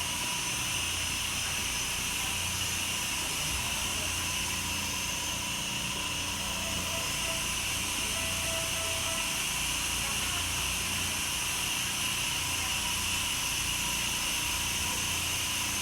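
Steady, continuous hiss of compressed air escaping from the underfloor equipment of a Kintetsu 9020 series electric train standing still. This abnormal air leak will not stop.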